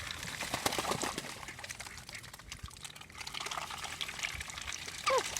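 Water splashing and trickling in a muddy duck pen, with many small splashes. A short falling call sounds near the end.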